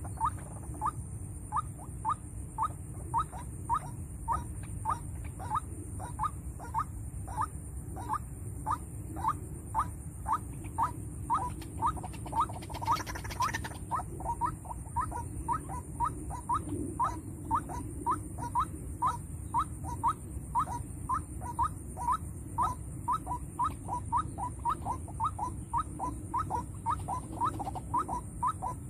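White-breasted waterhen (ruak-ruak) calling: a long, very regular series of short rising notes, about three a second, the bird-trapper's lure call. A brief hiss of noise about halfway through.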